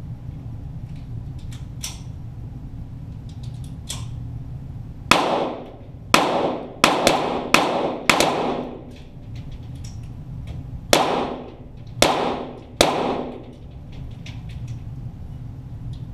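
Shots from .22 Walther GSP target pistols, echoing down an indoor range: eight sharp cracks, five in quick succession about five seconds in and three more about a second apart near the end. Fainter sharp clicks fall in between, over a steady low hum.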